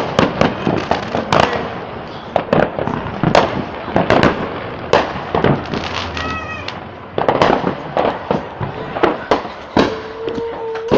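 Fireworks and firecrackers going off, a rapid irregular series of sharp bangs and pops with no let-up.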